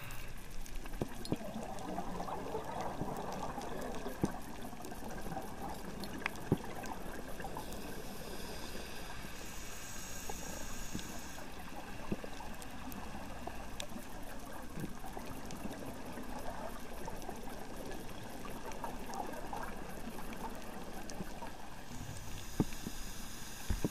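Underwater sound picked up by a diving camera: steady, muffled water noise with bubbling and gurgling swells and many scattered faint clicks.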